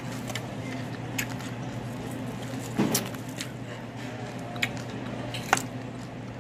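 Steady low hum of the restaurant room with a handful of short sharp clicks and knocks at the table, the loudest about three seconds in.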